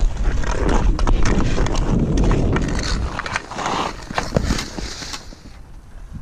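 Hockey skates scraping and striding on outdoor pond ice, with the stick tapping the puck in a run of sharp clicks and wind rumbling on the body-worn camera's microphone. A louder knock a little over four seconds in comes at the shot on the goalie, and the skating quietens toward the end.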